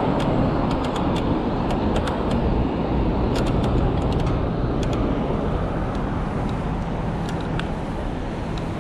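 Wind rushing over the microphone of a moving e-bike, mixed with the sound of city street traffic, with a few light clicks. The rush eases a little near the end as the bike slows.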